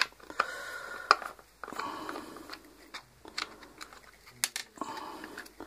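Screwdriver undoing small screws that hold a circuit board in a plastic housing: several short scraping, grinding turns broken by sharp clicks of the tool and screws.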